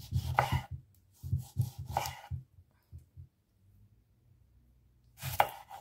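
Chef's knife slicing a tomato into rounds on a wooden cutting board: a run of soft cuts and taps of the blade on the board over the first two and a half seconds, a pause, then another cut near the end.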